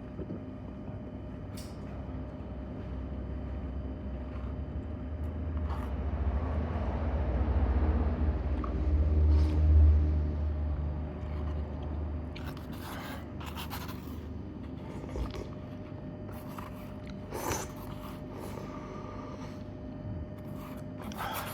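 A vehicle passing by: a low rumble that swells to a peak about ten seconds in and fades. After it come scattered short clicks and scrapes.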